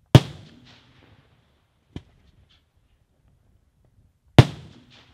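Daytime aerial firework shells bursting overhead: two loud bangs about four seconds apart, each trailing off in a rolling echo, with a shorter, quieter crack between them.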